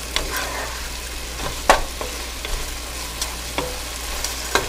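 Diced chicken, kielbasa and vegetables sizzling in a pot, stirred with a wooden spoon. A steady frying hiss runs under scattered scrapes and a few sharp taps of the spoon against the pot.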